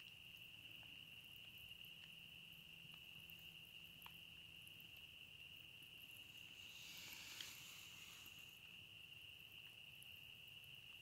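Faint, steady high-pitched chorus of night-calling animals, heard as one unbroken trill. A short hiss with a small click about seven seconds in.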